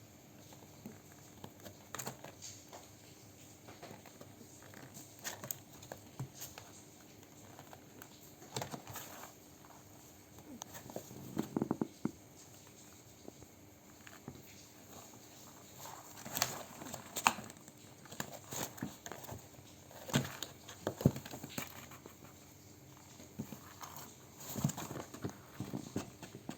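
A mother cat moving about on her bedding, making soft, irregular rustling and crinkling with light clicks. A few louder clusters of rustles come about eleven, sixteen and twenty seconds in, over a faint steady hum.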